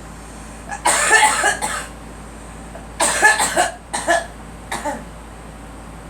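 A girl coughing in two fits: a run of coughs about a second in, then another run about three seconds in that trails off into two shorter coughs.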